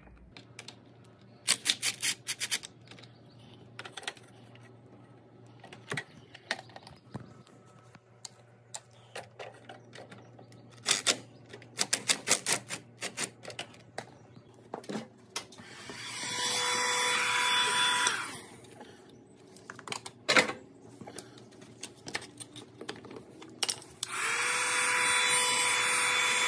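Ratchet wrench clicking in short quick runs as hose clamps are loosened. Then a heat gun blows, a steady hiss with a whine, once for about two seconds midway and again near the end. It is warming an intercooler hose coupler that is stuck on its pipe from operating heat.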